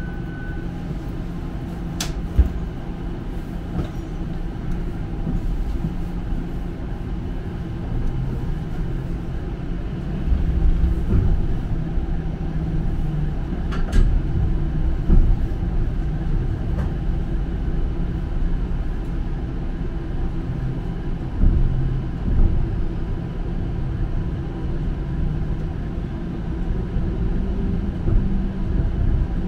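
Toronto streetcar running on its rails, heard from inside the car: a steady low rumble with a few sharp clicks, growing louder about a third of the way in.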